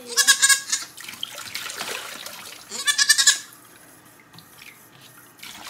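A young goat bleating twice, each call short and quavering, over water running and being poured in a kitchen sink.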